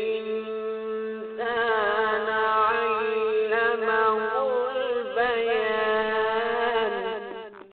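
A man's melodic Quran recitation (tilawat): a long held note trailing off, then a new phrase with ornamented turns about one and a half seconds in, which fades out just before the end.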